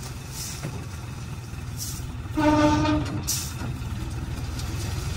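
Multicrop thresher driven by a Swaraj tractor, running with a steady low rumble as soybean plants are fed in. About two and a half seconds in, a short horn toot of about half a second sounds over it.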